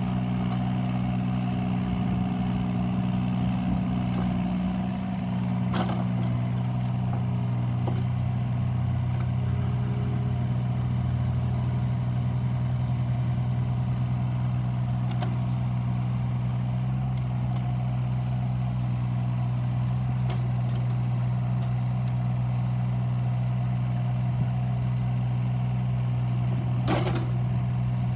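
Case CX36 mini excavator's diesel engine running steadily as the arm and bucket work a gravel pile. A few sharp knocks sound over it, one about six seconds in and a louder one near the end.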